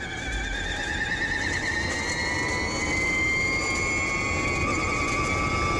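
Robocar driverless electric race car's electric drive motors whining under acceleration. The whine climbs slowly in pitch and then holds steady, over a rushing noise.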